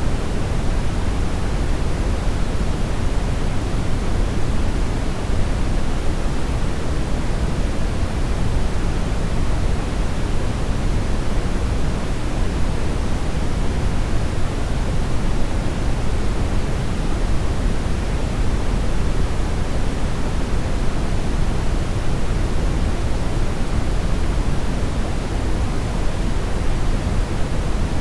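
Steady brown noise: an even, unchanging rush weighted toward the low end, with no events or changes.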